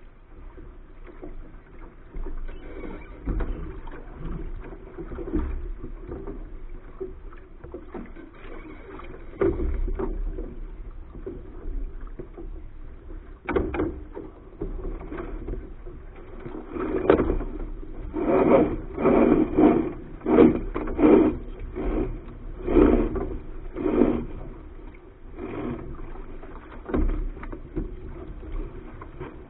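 Water rushing along the hull of a Soling keelboat under sail, picked up through the hull by a deck-mounted camera. From about halfway in comes a run of a dozen or so sharp knocks against the hull, a little under a second apart.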